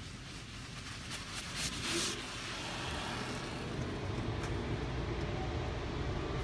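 Automatic car wash heard from inside the car: a brief hiss of water spray between about one and two and a half seconds in, over a steady low rumble of the wash machinery that grows louder from about three seconds in.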